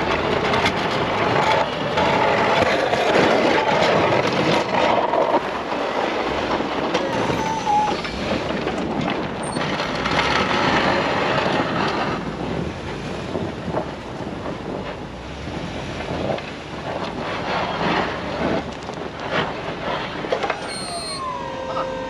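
Steel snowplow blade on a pickup scraping over hard-packed snow and ice, a loud grinding scrape over the truck's engine that eases after about twelve seconds. Near the end a short whine falls in pitch.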